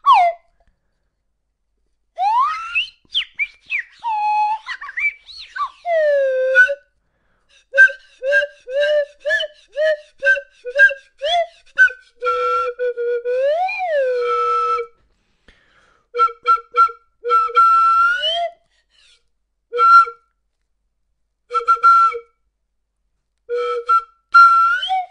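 A whistled, flute-like tune of short notes and pitch slides, with one long rise-and-fall slide about halfway through. It comes in phrases separated by sudden silences.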